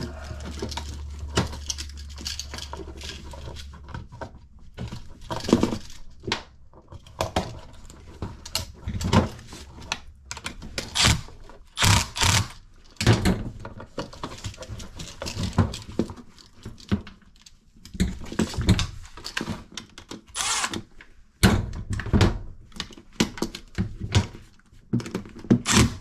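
Handling noise of a GFCI receptacle being wired into a metal wall box: irregular clicks, rattles and knocks as the copper wires are bent and the device is worked into place, a few sharper knocks near the middle.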